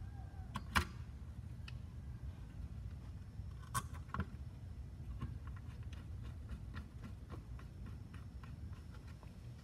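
Light clicks and taps of a charger's circuit board and plastic case being handled and fitted together by hand, sharpest about a second in and twice around four seconds in, over a steady low hum.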